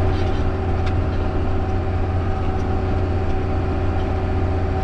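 Farm tractor's diesel engine running steadily under load, heard from inside the cab: a constant low hum with a steady drone over it.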